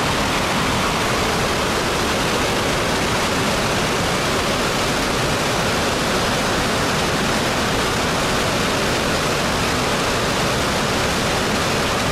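Brown floodwater pouring over a low weir in a steady, unbroken rush of falling water.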